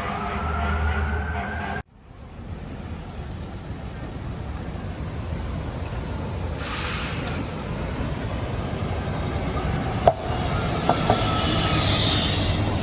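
A siren winding up in pitch, cut off abruptly about two seconds in, followed by the steady low rumble of heavy street traffic. A short hiss comes near the middle and a few sharp clicks near the end.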